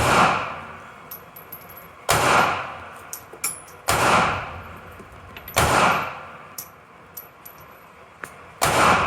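Five handgun shots fired one at a time, about every two seconds, each sharp report trailing off in a short echo, with faint light clicks between shots.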